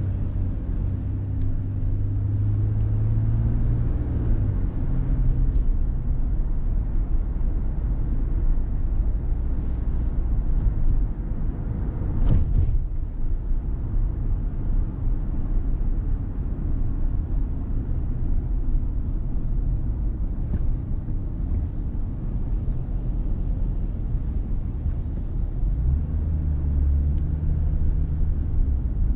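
Car driving, with a continuous low rumble of engine and road. A steadier low engine hum stands out in the first few seconds and again near the end, and a brief sharp noise cuts through about twelve seconds in.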